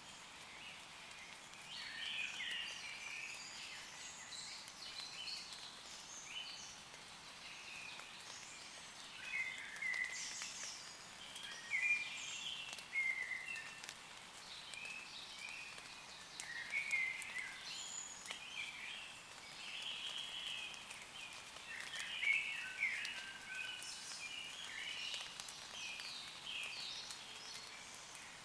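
Several woodland birds singing and calling in short chirping phrases throughout, over a steady hiss of gentle rain on leaves.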